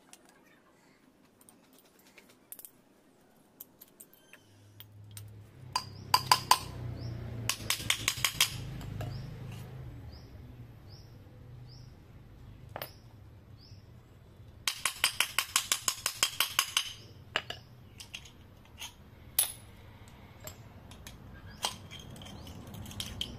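Rapid metallic clicking in two quick runs, with scattered single clicks, over a low hum that starts about four seconds in.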